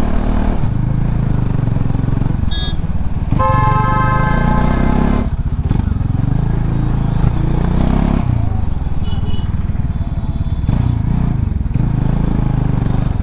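Bajaj Dominar's single-cylinder engine running beneath the rider, its pitch rising and falling as it speeds up and slows in traffic. About three and a half seconds in, a vehicle horn sounds for nearly two seconds.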